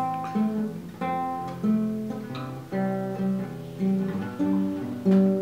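Acoustic guitar strumming chords in a steady, unhurried rhythm, with the chords changing as it goes. This is the instrumental lead-in before the singing starts.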